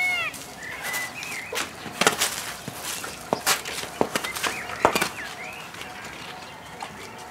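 Rural outdoor ambience: small birds chirping, with a handful of sharp knocks or taps in the first five seconds.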